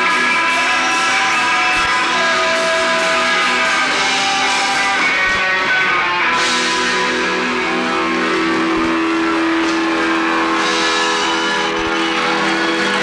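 Live rock band playing: strummed electric guitars with long held notes in the second half, from the band that includes an accordion.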